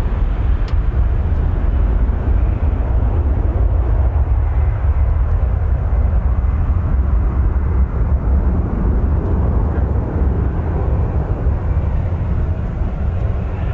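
Boeing 737-800's CFM56-7B turbofan engines at takeoff thrust just after lift-off, a loud, steady jet noise with a deep low rumble as the airliner climbs away.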